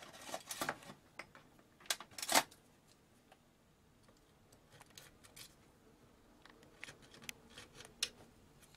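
Small plastic clicks and rustling as wire connectors are handled on a CRT television's main circuit board, with two sharper clicks about two seconds in. Faint scattered ticks of a hand tool against the board follow.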